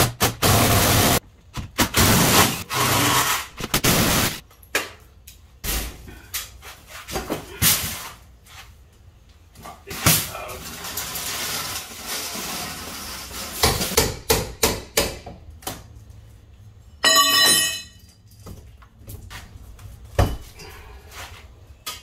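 Work noise from taking down a steel security screen door: long bursts of a cordless drill running, with knocks, clicks and rattles of the metal door and frame being handled in between. Near the end comes a brief high whine.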